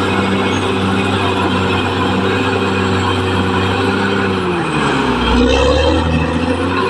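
Caterpillar D6R XL bulldozer's diesel engine running steadily. About four and a half seconds in, its pitch drops sharply and it rumbles lower and slightly louder, then it climbs back up near the end.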